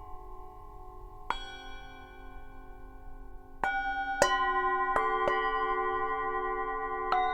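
Tibetan singing bowls struck about six times at uneven intervals, each strike ringing on and overlapping the ones before. The ringing gets louder after about three and a half seconds, and one low tone pulses slowly.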